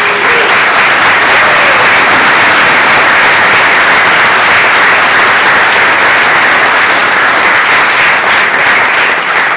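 Audience applauding loudly and steadily, easing off slightly near the end.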